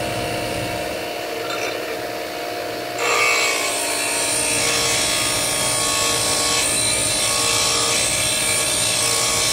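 DeWalt DW758 8-inch bench grinder running with a steady hum. About three seconds in, a steel lathe tool bit is pressed against the wheel, and a loud, even grinding hiss holds to the end as the side relief angle is ground onto the bit.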